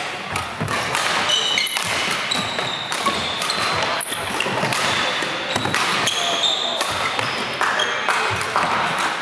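Badminton rally: rackets striking the shuttlecock in sharp hits, and sneakers squeaking briefly and repeatedly on the wooden court floor.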